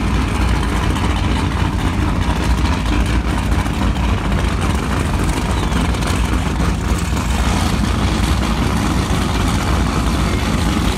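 Performance powerboat engines idling as the boats manoeuvre in the marina: a steady low rumble.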